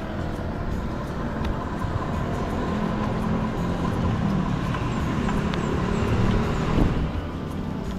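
Road traffic noise with a vehicle engine growing louder over several seconds and peaking near the end, with a faint steady tone underneath.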